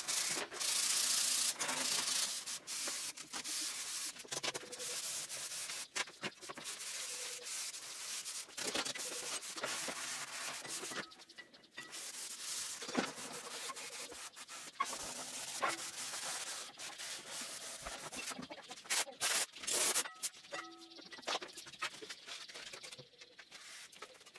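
Hand sanding: irregular strokes of abrasive paper rubbing on a surface, broken by short pauses.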